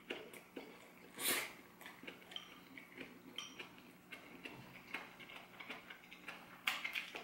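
Slurping and chewing a mouthful of fried instant noodles, with a louder slurp about a second in and small clicks throughout.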